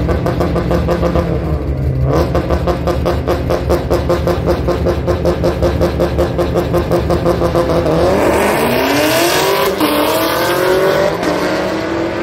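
Drag racing car's engine running at a lumpy, pulsing idle, then revving up about eight seconds in: the pitch climbs, dips briefly, climbs again and holds.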